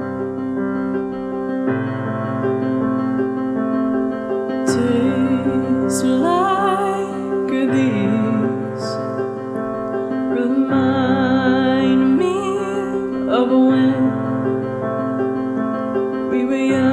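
A song's piano intro of held chords that change about every three seconds. About five seconds in, a woman's voice starts singing over it with a wavering vibrato.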